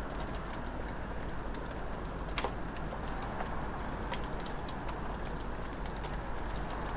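Wood fire crackling in a fireplace: a steady low rush with scattered sharp pops and snaps, one a little louder about two and a half seconds in.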